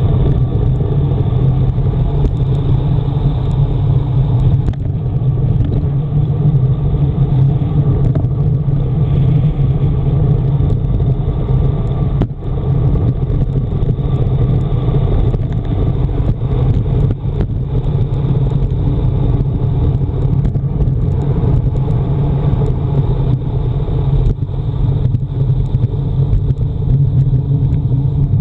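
Steady, deep rumble of wind rush and tyre-on-tarmac noise from a road bike descending at speed, picked up by a handlebar-mounted camera.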